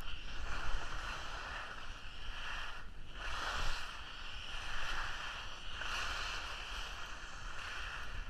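Skis hissing and scraping over packed snow through a series of turns, swelling and easing with each turn about once a second, over the low rumble of wind on the microphone.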